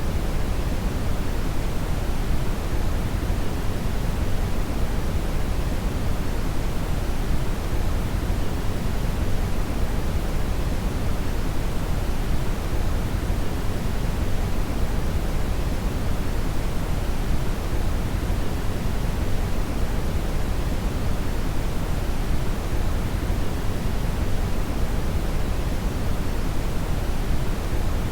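Steady synthetic brown (red) noise: an even, deep rushing hiss, strongest in the bass and thinning toward the treble, unchanging throughout.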